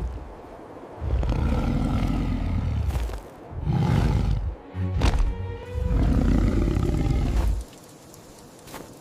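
A large animal roaring, four deep, rough roars in a row, each one to two seconds long, with music underneath.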